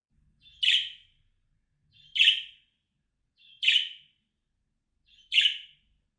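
Budgerigar giving four short, sharp contact calls, evenly spaced about a second and a half apart. This is the calling-style cry that draws other budgies' attention.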